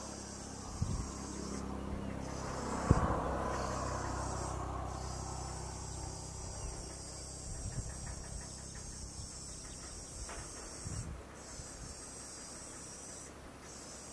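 A steady chorus of insects, a high-pitched trill of several stacked tones that breaks off briefly a few times. Underneath is a low rumble with a few knocks, the sharpest about three seconds in.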